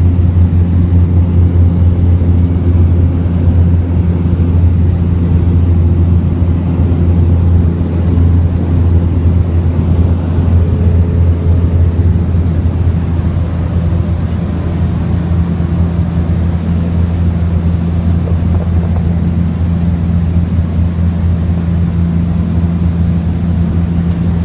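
Propeller airplane's engine drone, a steady low hum with a slight drop in level a little past halfway through.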